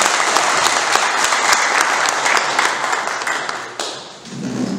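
Audience clapping: a dense round of applause that thins and dies away about four seconds in.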